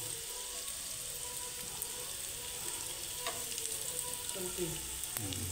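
Onions, green chillies and spices frying in oil in a pan, a steady sizzle.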